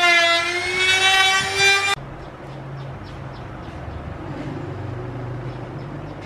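Handheld electric trim router whining as it cuts plywood, its pitch sagging and climbing with the load; the sound cuts off abruptly about two seconds in, leaving a low steady hum with a few faint small clicks.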